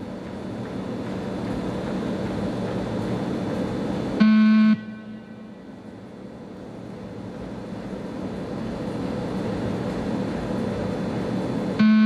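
Beep test timing signal: a loud, buzzy electronic beep about half a second long, sounding about four seconds in and again right at the end, each marking the end of a 20 m shuttle. Between the beeps a steady hum of room noise.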